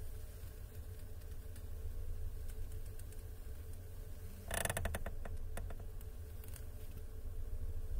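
Car steering creaking: a short burst of rapid creaks and clicks about halfway through as the steering is turned, with a few lighter ticks after it, over a steady low hum.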